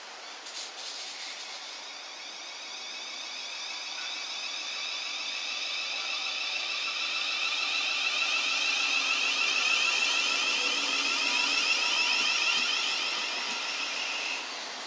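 Thameslink Class 700 (Siemens Desiro City) electric train running into the platform and slowing to a stop. A high-pitched whine of several steady tones grows louder as it draws alongside, over the rumble of wheels, and cuts out shortly before the end.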